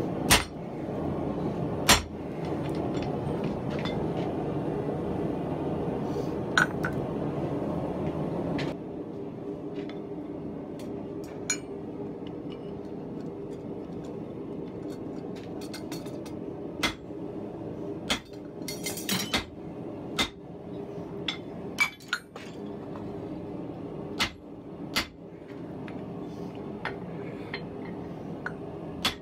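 Hammer blows ringing on steel on an anvil, mostly single scattered strikes, with a quick flurry of lighter blows a little past the middle. Under them runs a steady roar that drops to a quieter hum about nine seconds in.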